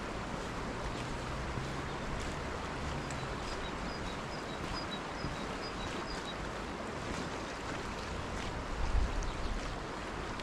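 Steady outdoor wind noise, with low gusts buffeting the microphone near the end and a short run of faint high chirps in the middle.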